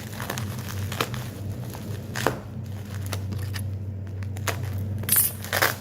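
Plastic packaging crinkling and rustling as it is handled, in a few short bursts, over a steady low hum.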